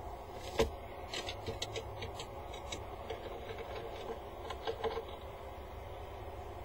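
A peregrine falcon's feet moving over nestbox gravel and metal grating: one sharp knock, then a run of small clicks and taps that stop after about five seconds, over a steady low hum.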